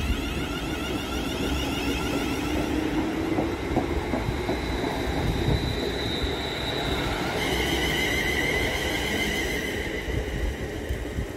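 Class 350 Desiro electric multiple unit pulling away past the platform. Its electric traction gives a high whine, with a lower tone that rises in pitch as it gathers speed, and the wheels click over the rail joints.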